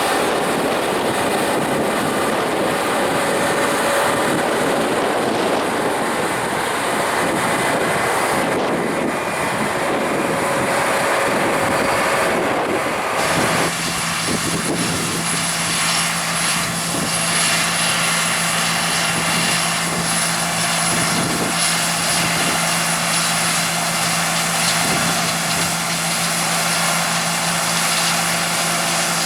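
Large harvest machinery running steadily, a diesel engine drone mixed with the whirr of working parts. Partway through the sound changes suddenly to a steadier hum with a low tone and a thin high whine.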